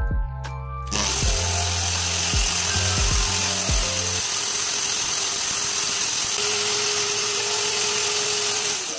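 A power tool spinning a sanding disc while the head of a small steel bolt is held against it, giving a steady high whine with gritty sanding noise. It starts about a second in and cuts off just before the end.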